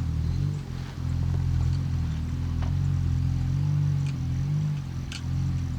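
Lada Niva's engine pulling steadily at low revs as the 4x4 crawls up a badly rutted dirt track, its pitch rising and falling slightly, with a few sharp clicks.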